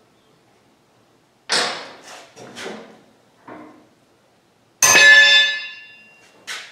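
Steel hand tools knocking and clanking against a brush hog's steel deck and blade hardware: a few short knocks, then about five seconds in a loud metallic clang that rings on for about a second, and one more knock near the end.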